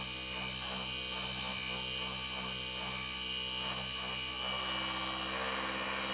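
LG 2.5 HP split inverter air conditioner's compressor running steadily: a hum with high, steady whining tones. It is running again now that its failed IPM (inverter power module) has been replaced.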